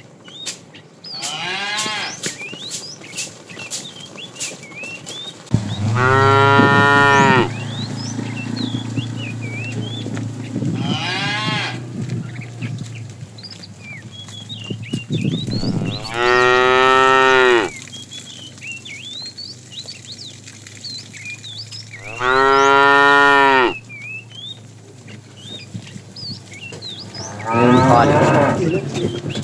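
Cattle mooing: four loud, drawn-out moos of about a second and a half each, with fainter moos from other cows between them.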